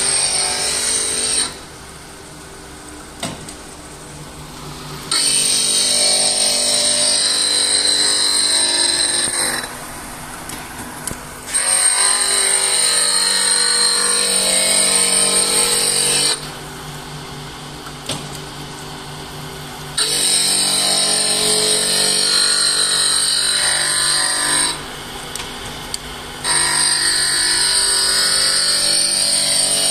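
Automatic planer knife grinding machine: a cup grinding wheel grinds along a steel planer knife, a loud high-pitched grinding whine that lasts four to five seconds at a time. It alternates four times with quieter stretches where a lower motor hum carries on.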